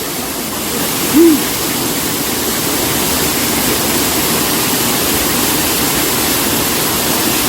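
Steady rush of a waterfall pouring into its pool, with one short hoot-like voice call about a second in.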